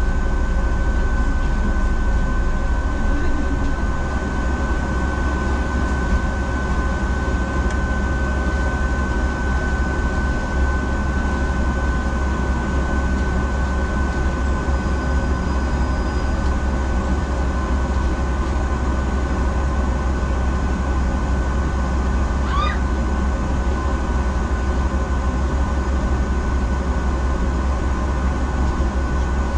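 Double-decker bus at a standstill with its engine idling, heard from inside the upper deck: a steady low rumble with a thin steady whine over it.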